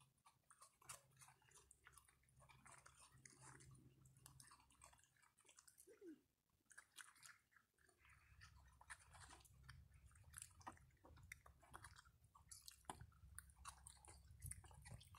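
Two raccoons eating, a faint run of quick crunches and clicks as they chew pieces of dry food.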